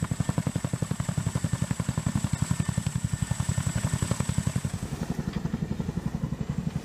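MH-47 Chinook tandem-rotor helicopter hovering, its rotor blades beating in a rapid, even pulse. A thin high whine sits over the beat and fades out about two-thirds of the way through.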